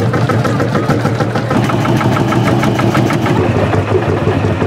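Vintage tractor engine running at a slow, steady idle, with an even beat of about seven or eight strokes a second.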